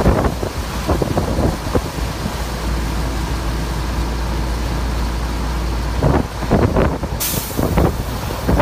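Wind buffeting the microphone of a moving vehicle over the low rumble of the ride. About seven seconds in, a steady high hiss starts and runs on.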